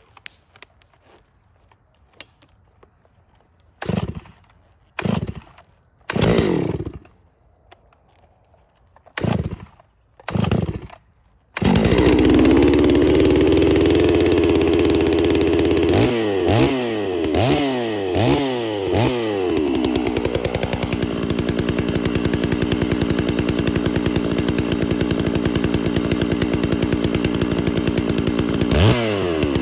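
Gas chainsaw being pull-started: five short sputtering pulls, then the engine catches about a third of the way in and runs at high revs. The throttle is blipped up and down several times, then held at full throttle to cut into a sweet gum log.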